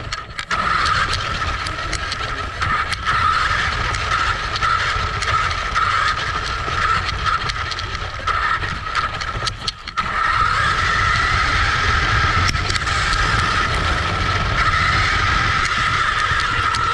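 Battery-electric radio-controlled buggy driving, heard from on board. Its motor gives a steady high whine over the rumble and rattle of the tyres and chassis on pavement and then grass. The motor eases off briefly about ten seconds in.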